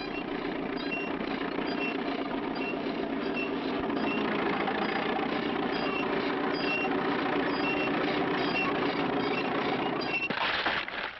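A run-down, neglected bicycle with no brakes left, rattling and clanking along with a short high squeak about every two-thirds of a second. A short, louder burst of clatter comes near the end.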